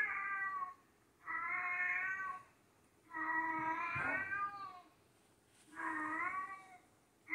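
Cat screaming from a video played on a TV: a series of long, drawn-out yowls, four in a row with short pauses between them.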